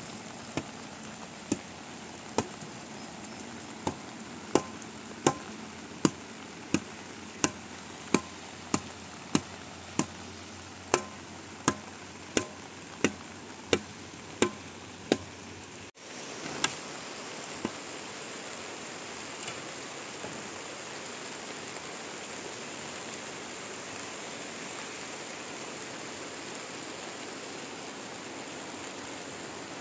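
A long-handled spade striking wet ground in a steady rhythm, about one blow every 0.7 seconds. About halfway through the blows stop and only a steady rain hiss remains.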